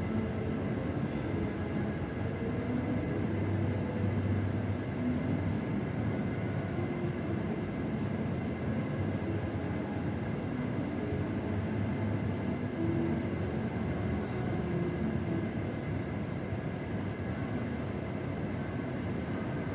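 Steady café room noise: an even low rumble with a faint, thin high-pitched tone running through it.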